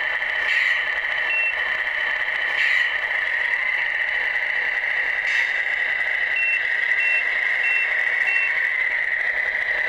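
Tamiya Globe Liner RC truck's sound unit playing a steady, tinny engine drone through its small speaker, with a reversing beeper: one short beep, then a run of four beeps about two-thirds of a second apart in the second half. A few brief hisses come in between.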